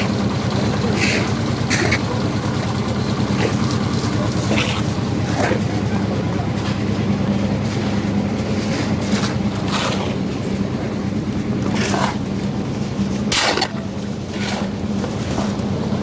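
An engine running steadily on a construction site, with scattered sharp knocks and clanks over it.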